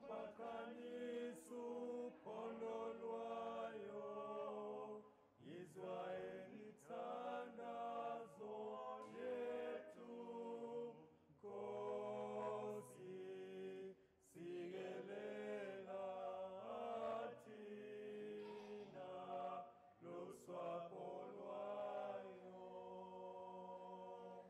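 Male vocal quartet singing a cappella in harmony, the voices held together in long phrases with short pauses between them.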